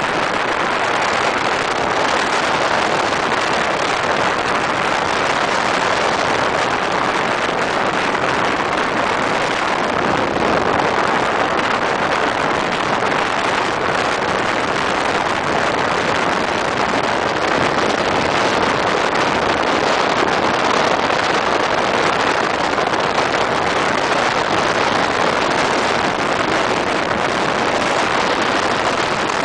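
Steady rush of tyre and wind noise from a car driving at highway speed, heard from inside the car, with no engine note standing out.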